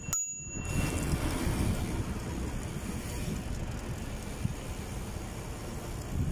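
Wind buffeting the microphone of a camera moving with a group of cyclists, a steady low rumble with no speech. A brief high ring sounds at the very start.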